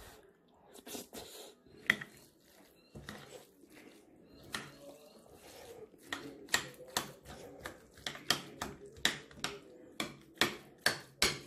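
A series of short, sharp clicks and taps, irregular at first and coming about two a second in the second half.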